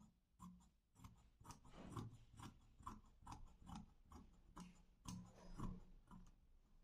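Scissors cutting through cloth: a steady run of faint snips, about two a second.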